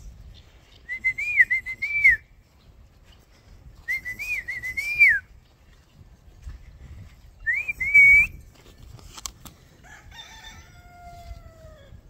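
A person whistling three short warbling phrases close to the microphone, each about a second long. Near the end a rooster crows, fainter and falling in pitch.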